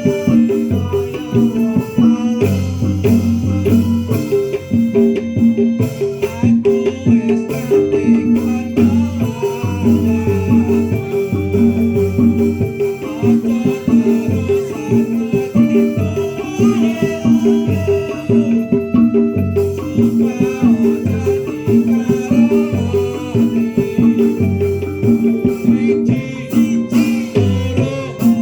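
Percussion-led ensemble music: regular drum strokes under a fast repeating pitched pattern, with melody lines above, playing on without a break.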